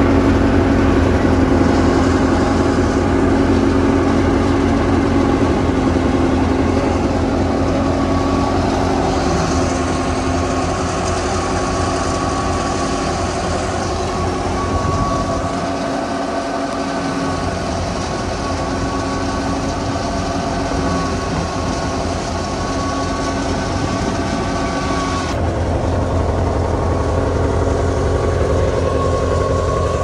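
Wheat threshing machine running steadily: a loud, continuous engine hum with a steady whine over it. Its tone changes abruptly about 25 seconds in.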